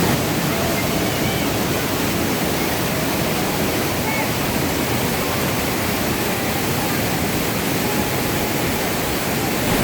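Steady roar of the Iguazu Falls, a dense, unbroken rush of falling water.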